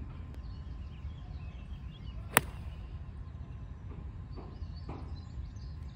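A 9-iron striking a golf ball off the tee: one sharp, crisp click about two and a half seconds in, a clean strike that is really well hit. A steady low rumble of outdoor background noise runs underneath.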